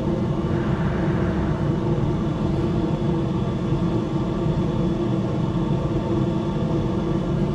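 Wood pellet smoker's combustion fan running steadily with a constant hum over a low rumble, during start-up on the smoke setting while the hot rod igniter heats up.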